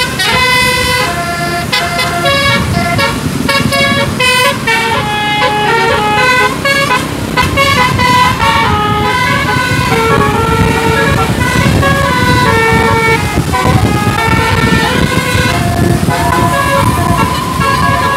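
Bus 'telolet' musical air horn playing a tune, first as quick short notes, then as longer held notes from about eight seconds in, over a steady low rumble.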